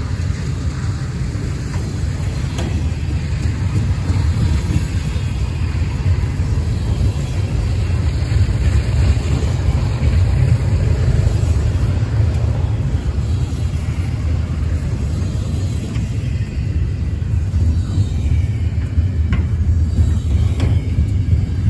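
Double-stack intermodal freight train rolling past: a steady, deep rumble of steel wheels on the rails as the loaded container well cars go by.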